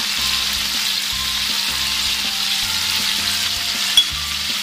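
Chicken pieces frying in hot oil in a karahi, a steady sizzle, as minced garlic is added. One sharp click about four seconds in.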